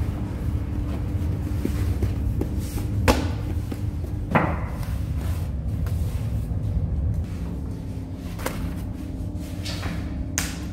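Lavash dough being slapped onto the inside wall of a clay tandoor with a cushioned pad: about four sharp slaps, spaced a few seconds apart, over a steady low rumble.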